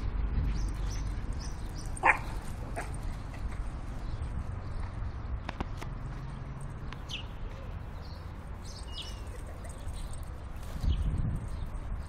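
Miniature pinscher barking once, sharply, about two seconds in, with a few fainter short yaps later, over a steady low background rumble.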